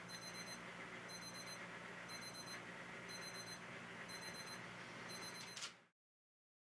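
Electronic alarm beeping: short bursts of high, rapid beeps about once a second over a steady low hum, stopping abruptly near the end.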